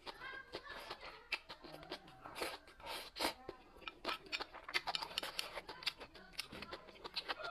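Close-up eating sounds: irregular chewing and crunching clicks from a person eating.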